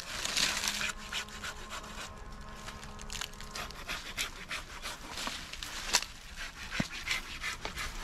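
Dry branches and woody cuttings rubbing and scraping, with irregular crackles and knocks.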